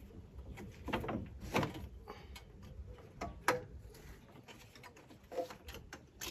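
A few scattered light knocks and clicks of an antifreeze bottle and its cap being handled while getting ready to fill the cooling system.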